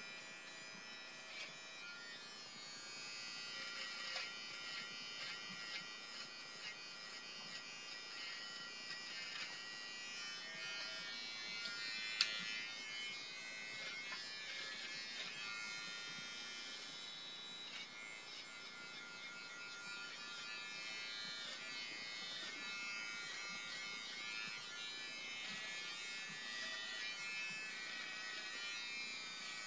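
A BaByliss for Men i-stubble electric beard trimmer buzzing as it cuts facial stubble. There is a single sharp click about twelve seconds in.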